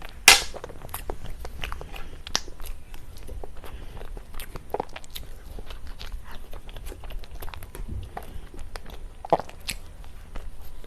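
Close-miked eating sounds: a person biting and chewing cake, with many small wet clicks and crunches, a sharp loud bite just after the start and another near the end.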